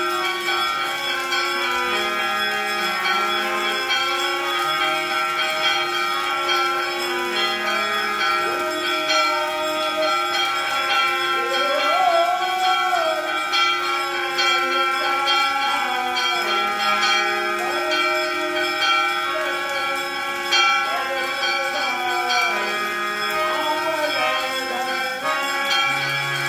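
Temple bells ringing continuously during an aarti: many overlapping, sustained bell tones. In the second half a wavering tone rises and falls over them several times.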